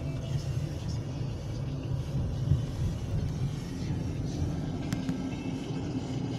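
Car engine and road noise heard inside the cabin while driving: a steady low rumble.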